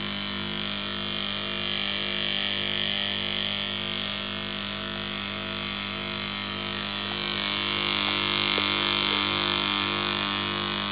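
Two small shaded-pole AC motors, belt-coupled pulley to pulley, running steadily at full speed. They give a constant electrical hum with a higher whirring hiss that grows a little louder near the end.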